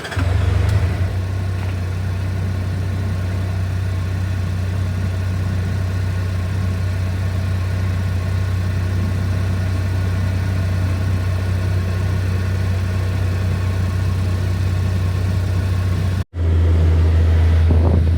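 CFMoto UForce U10 Pro side-by-side idling steadily with its cab heater's fans blowing, a constant low drone under an even rush of air. The sound cuts out for an instant about 16 seconds in and comes back a little louder.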